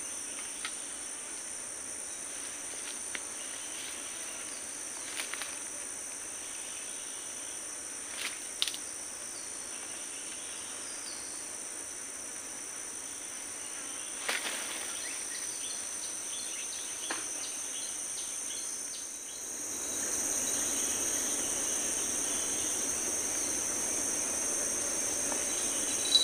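A steady, high-pitched drone of insects keeps going throughout, with a few faint clicks scattered through it. About two-thirds of the way through, a duller rustling noise rises under it and stays.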